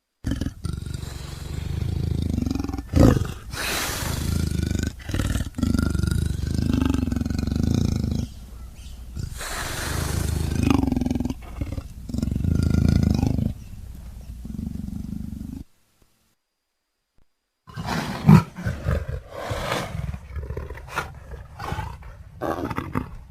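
Film sound effects of wolves growling: deep, continuous growls rising and falling in waves for about fifteen seconds. A two-second silence follows, then a choppier run of shorter growls with one sharp, loud snap.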